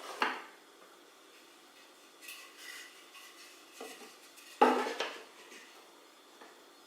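Small hard parts being handled and knocked together: a sharp knock just after the start, a soft rustle, then a louder knock a little past halfway, with a short ring after it.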